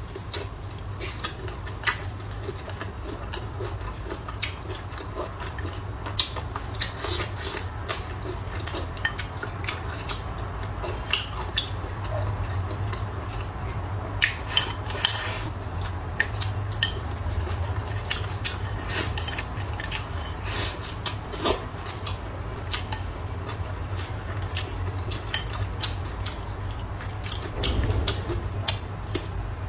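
Chopsticks and utensils clicking and clinking against bowls and dishes while eating, in short irregular taps, over a steady low hum.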